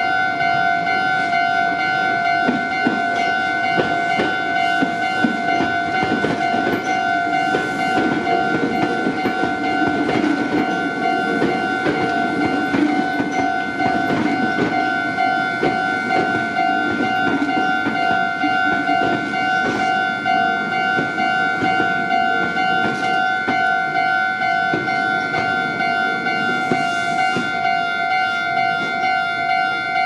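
A Japanese level-crossing warning bell rings steadily in two tones throughout. A Meitetsu electric commuter train passes over the crossing, its rumble and wheel clatter building after about eight seconds and fading over the last several seconds.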